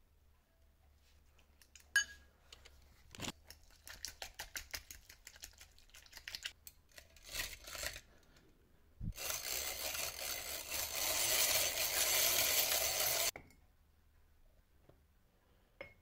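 Hands working crumbly pastry dough in a glass bowl: a sharp click, a knock, then a run of small crackling clicks. Near the middle a knock is followed by about four seconds of loud steady rushing noise that cuts off abruptly.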